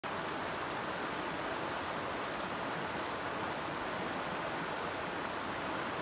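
Shallow river flowing, a steady even rush of running water.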